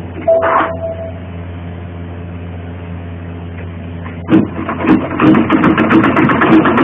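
Domestic sewing machine stitching a seam: after a pause of a few seconds with only a low hum, the rapid stitching clatter starts again about four seconds in and runs on steadily.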